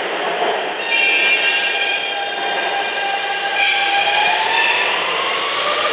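R160 subway train pulling out of the station: a steady rumble with high electric whines from its propulsion that come in about a second in and again midway, then a whine that climbs slowly in pitch as the train gathers speed.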